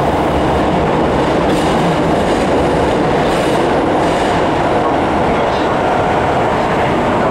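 Interior running noise of an Osaka Municipal Subway Sakaisuji Line 66 series car moving through a tunnel: a steady, loud rumble of wheels on rail, with a few faint clicks about two to four seconds in.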